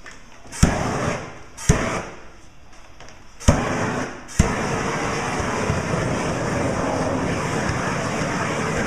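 Propane heat-shrink torch firing: sharp clicks of the trigger and igniter, each followed by the loud rush of the gas flame. At first come three short blasts; from about halfway in the flame is held on steadily.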